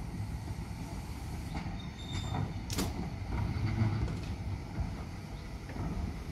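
Steam locomotive running slowly tender-first, a steady low rumble with scattered clanks and creaks and a sharp knock about three seconds in.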